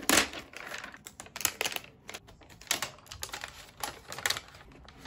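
Paper wrapping and a cardboard box being handled as a new laptop is unwrapped and lifted out: crisp rustling and light scraping that comes in about five short spells.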